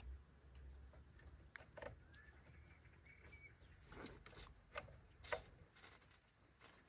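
Near silence, with a few faint clicks and knocks and some faint bird chirps.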